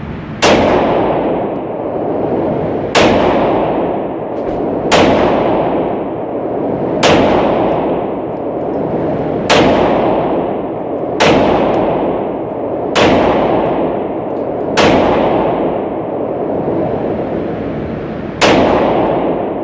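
Firearm shots fired one at a time at a shooting range, nine shots about two seconds apart with a longer pause before the last. Each shot rings on in a long echoing tail.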